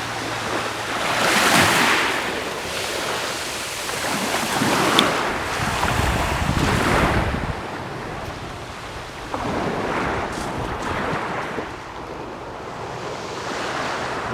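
Small sea waves breaking and washing on the shore, the surf swelling and fading every few seconds, with wind rumbling on the microphone.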